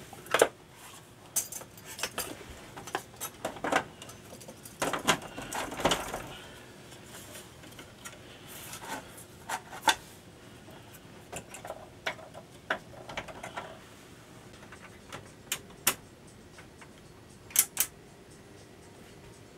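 Hands handling an opened HP 3457A multimeter's chassis and front panel on a workbench: scattered clicks, knocks and rustles of metal and plastic parts, with a sharp double click near the end. A faint steady hum runs underneath.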